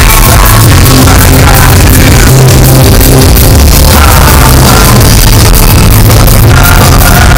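Live band playing loud electronic rock with heavy, steady bass. The recording runs at full level throughout.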